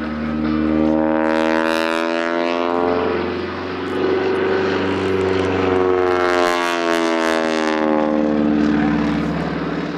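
Aerobatic biplane's piston engine and propeller running hard through manoeuvres, its pitch rising and then falling twice.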